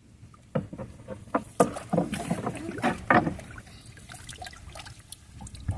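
Irregular knocks and clatter against a small canoe as it is moved about in, several in quick succession for a few seconds.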